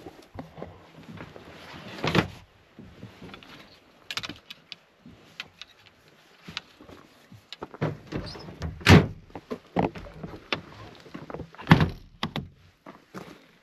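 Irregular knocks and clunks of things being handled and set down, with loud thunks about two seconds in, about nine seconds in and near the end.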